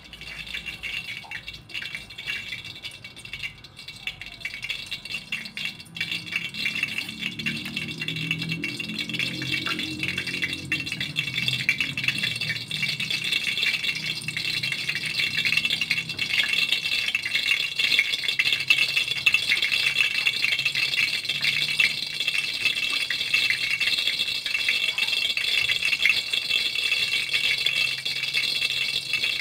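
Cooking oil heating in an aluminium wok, crackling and sizzling with a dense fine crackle that grows steadily louder as the oil gets hotter.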